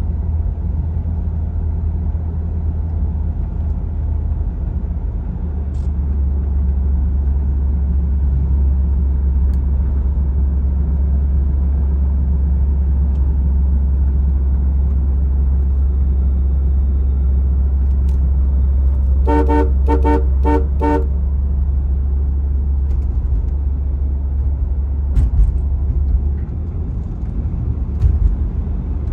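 Steady low drone of a 1990 Cadillac Brougham cruising at about 34 mph, heard inside the cabin: its V8 engine and tyres on the road. About two-thirds of the way through, a car horn gives five short toots in quick succession, and a couple of brief thumps come near the end.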